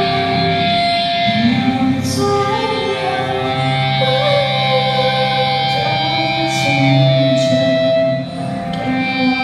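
Live band music: held electric guitar notes with singing, and a cymbal crash about two seconds in and another past the middle.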